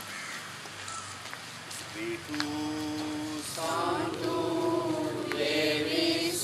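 One voice starts a long held note about two seconds in, and a group of voices joins it about a second and a half later, singing a slow chant with long sustained notes.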